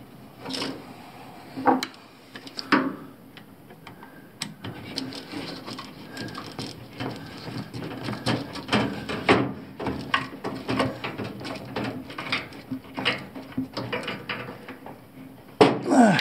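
Screwdriver work fastening the last bottom screw of a washer drain pump: irregular small clicks and knocks of tool and plastic parts, several a second, with a faint low hum under them from about four seconds in and a louder clatter at the very end.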